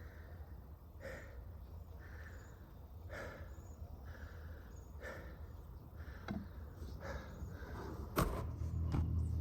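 A person breathing hard and rhythmically, about one breath a second, while working a hand-drill friction fire. Near the end comes a sharp knock, and louder wood-on-wood rubbing of the spindle starts.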